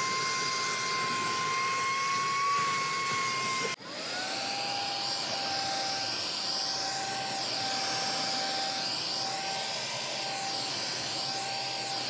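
Cordless handheld car vacuum running on its stronger second power setting, a steady high-pitched motor whine. About four seconds in, the sound breaks off and the whine picks up again at a lower pitch while the vacuum works the carpet.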